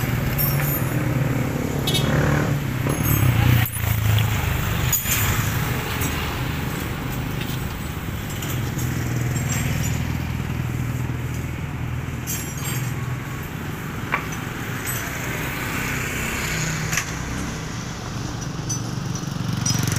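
A motor vehicle engine running with a steady low hum, over which come scattered small clicks and clinks of hands and tools working at a motorcycle's brake light wiring.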